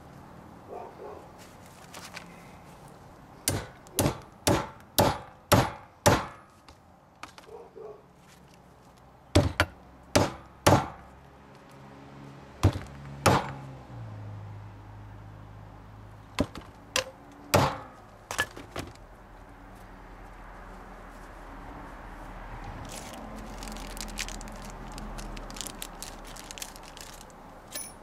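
A hammer tapping a new U-joint's bearing caps into the yoke of a front axle shaft: a run of six sharp strikes about two a second, then shorter groups of two or three strikes.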